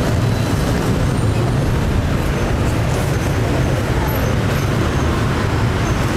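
Steady rumble of street traffic, an even low noise with no distinct events standing out.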